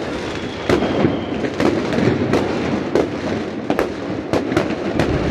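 New Year's fireworks going off all over a city at once: a steady din of many explosions, with a dozen or so sharp bangs and cracks at irregular intervals.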